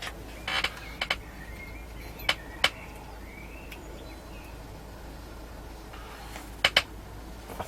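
A few sharp clicks and taps from handling test gear and tools on a workbench, scattered through several seconds, over a faint steady background hum.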